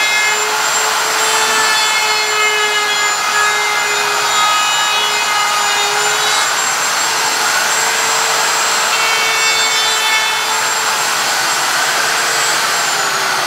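Electric router running with a steady high whine, its bit cutting along the edge of a wooden board with a rough rasping noise. Near the end the whine falls in pitch as the motor winds down.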